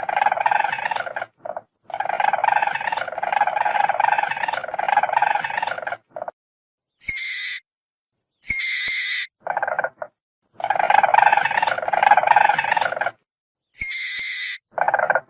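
Weasel vocalising in repeated bursts. Long, rapid chattering calls of several seconds alternate with short, higher-pitched squeals, and each call is separated by dead silence.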